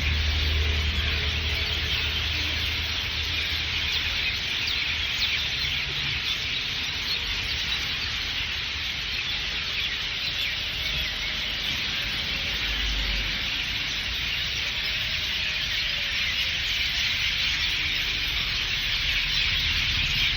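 A dense, steady chorus of many small birds chirping at once, their calls blending into a continuous high twittering. A low hum runs underneath for the first few seconds.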